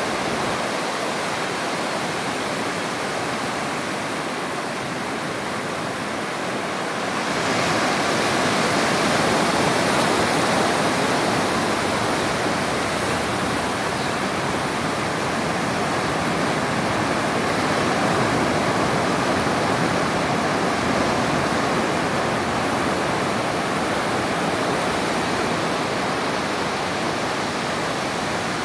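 Ocean surf breaking and washing up a beach: a steady rush of waves that grows louder about seven seconds in.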